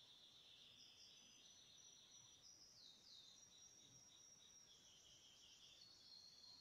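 Near silence: room tone with a faint, high-pitched steady whine that shifts in pitch a few times.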